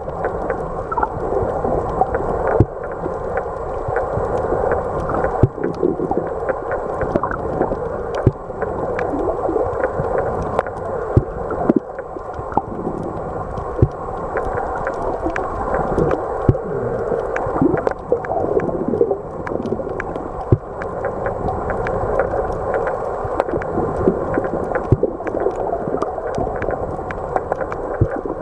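Muffled water noise, as picked up by a camera held underwater, with many short sharp clicks and pops scattered throughout.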